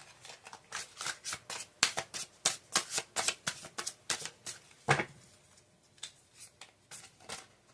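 Tarot cards being shuffled by hand: a quick run of card flicks and taps, a sharper snap about five seconds in, then a few scattered taps.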